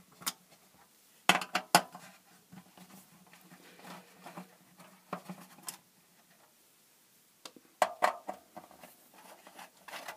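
Small metallic clicks and clinks as the corner screws are worked out of an LED floodlight's metal reflector. There are a few sharp clicks about a second in, more around the middle and near the end, with quiet scraping between.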